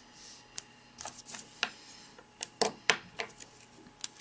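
Irregular sharp clicks and taps, about ten over four seconds, the loudest a little past the middle: a pen and a sheet of paper being handled on a desk.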